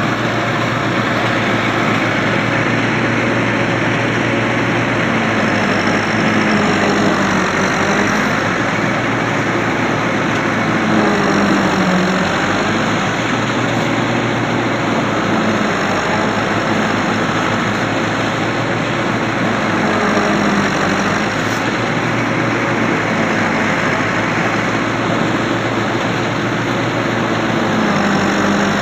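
Tractor engine running steadily while driving a red fodder cutter that chops hand-fed maize stalks for silage: a loud, continuous mechanical din whose engine note dips briefly a few times.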